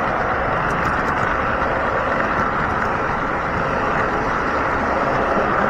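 O scale model train running along the track, heard from a camera riding on a gondola car: a steady rolling rumble of wheels on rail with a few faint ticks.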